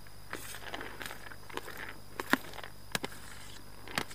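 Scoop stirring soaked fishing pellets in a bait bowl: irregular rustling and scraping, with several sharp clicks of the scoop against the bowl, the loudest a little past two seconds in.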